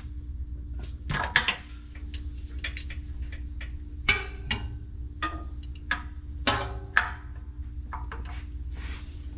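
Metal hand tools clinking and clanking against each other and the axle as a 24 mm socket and wrench are worked on a differential fill plug, with several sharp metallic clinks, some ringing briefly, over a steady low hum.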